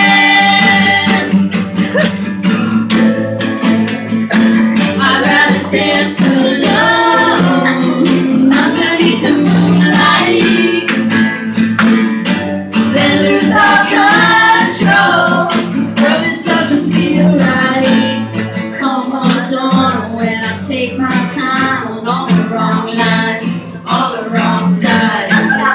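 Live acoustic band music: two acoustic guitars strummed steadily under a sung melody.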